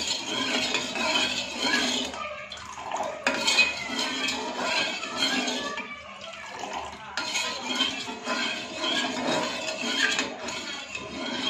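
Steel spoon scraping and clinking against the inside of an aluminium pot while stirring liquid jelly, with short pauses about two and six seconds in.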